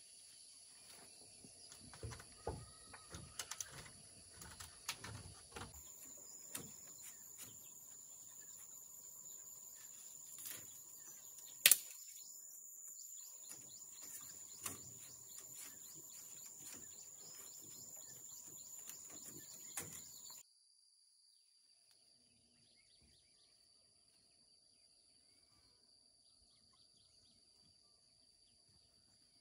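Rural outdoor ambience: a steady high-pitched insect drone with scattered bird chirps. During the first few seconds there are knocks and taps from work on a bamboo fence. A single sharp click comes about twelve seconds in, and the last third is much quieter.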